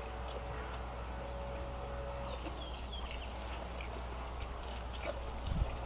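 Quiet outdoor background: a steady low rumble with a few faint bird chirps around the middle, and one brief low thump near the end.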